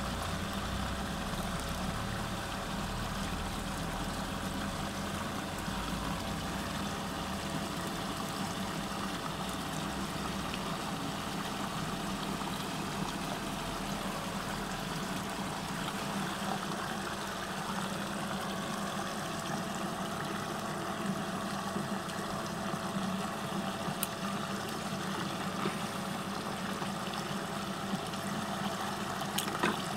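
Steady motor hum of the pump driving a whirlpool tank, with swirling, rushing water over it and a few light clicks in the second half.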